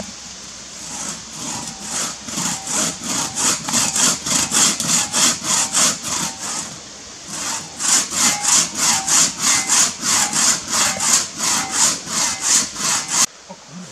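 Two-man crosscut saw cutting through a log by hand, in an even back-and-forth rhythm of about four strokes a second. The strokes build up at the start, pause briefly about halfway, then resume and stop suddenly near the end.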